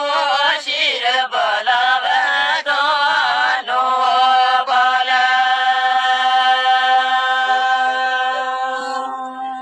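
A man singing unaccompanied in the Gojri kalam folk style. He sings a few ornamented phrases with quick bends in pitch, then holds one long steady note for about the last five seconds.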